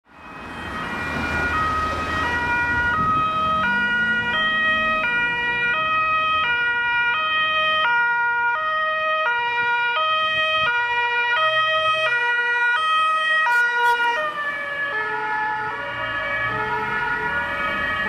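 German two-tone emergency siren (Martinshorn) on a Red Cross Ford Transit van, alternating between two pitches about every 0.6 s, with road traffic underneath. About 14 s in, both tones drop in pitch as the van passes and drives away, and the siren keeps sounding.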